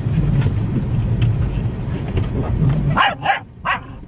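A dog barking in three quick, sharp yaps near the end, over the steady low rumble of a car.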